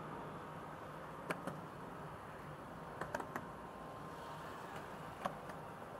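Steady wash of road traffic from a multi-lane city street, with a few sharp ticks scattered through: one about a second in, a quick cluster around three seconds, and another just past five seconds.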